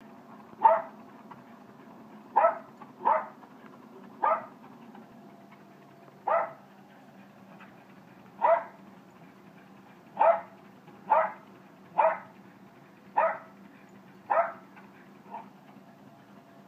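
Jack Russell terrier barking about a dozen times, single sharp barks every one to two seconds, the last one faint. Under the barks a steady low hum runs, from the treadmill the dog is on.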